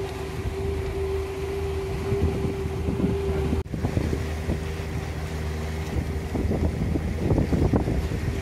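A boat's engine running steadily under way, a low drone with a steady hum above it, with wind buffeting the microphone and gusting more strongly in the second half. The sound drops out for an instant a little past a third of the way in.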